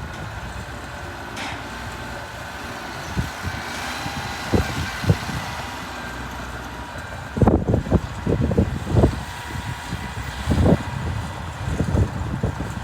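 Diesel engine of a small crawler bulldozer (Mitsubishi BD2F) running steadily, with a run of irregular knocks and clanks starting a little past halfway as the machine works.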